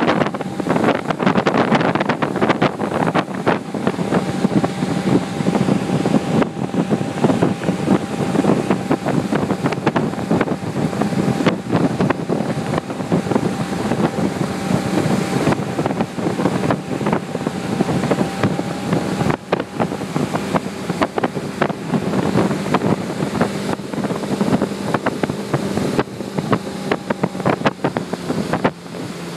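Motorboat engine running steadily at towing speed under heavy wind buffeting on the microphone, with the rush of the boat's wake.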